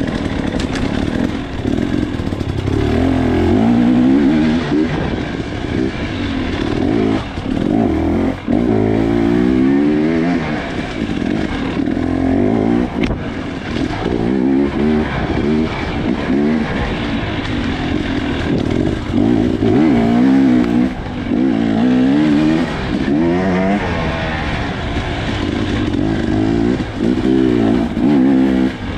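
Off-road motorcycle engine heard close up from the rider's helmet, revving up and falling back over and over, its pitch climbing and dropping every second or two as the throttle is worked. A single sharp click about halfway through.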